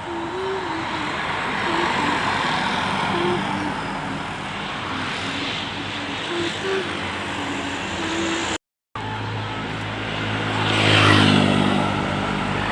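Tour bus passing on a road. Steady traffic noise with faint short tones at first; after a brief dropout a low engine hum swells to its loudest near the end as the bus goes by, its pitch falling.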